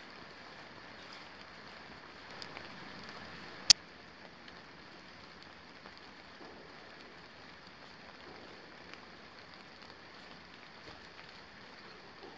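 Steady rain falling, with a single sharp click a little under four seconds in.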